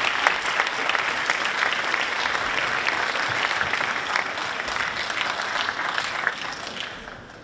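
An audience clapping, starting just after a name is called and fading out near the end.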